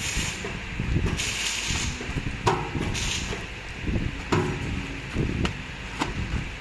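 Plastic bag film rustling and crinkling as a bagged stack of diapers is handled, with irregular thumps and several sharp knocks against the steel table of a diaper packing machine, and a few short hissing bursts.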